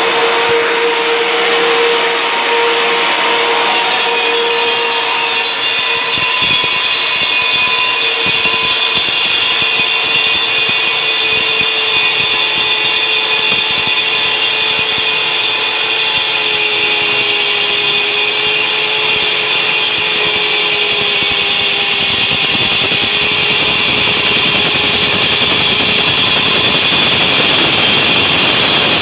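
Electric diamond core drill with a 4-inch core bit running steadily as it cuts into a concrete wall, its motor whine sagging slowly in pitch under the load of the cut.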